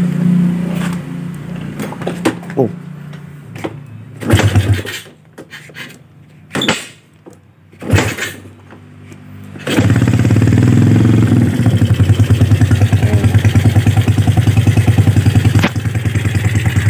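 Custom dirt bike's single-cylinder engine: a few knocks, then it starts about ten seconds in and idles through its aftermarket exhaust with an even, rapid pulse. The owner finds the exhaust note nice.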